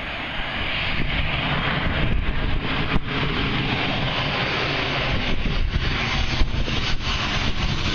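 Twin-engine jet airliner on final approach: a steady jet-engine rush that fills in as the aircraft nears, over low wind buffeting on the microphone.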